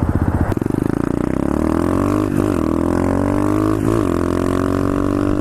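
Pit bike's single-cylinder engine running at a standstill, a steady drone whose pitch creeps slowly upward, with two brief wobbles in the revs.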